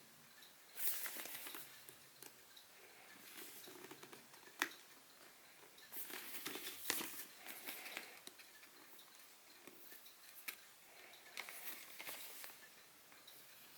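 A tightly glued retail box being worked open by hand: scattered scratching and rustling of cardboard and packaging with a few sharp clicks and snaps, the loudest about four and a half seconds in.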